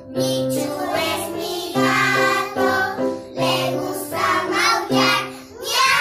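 A group of young children singing a song together, accompanied by an electronic keyboard playing steady held notes that change every second or so.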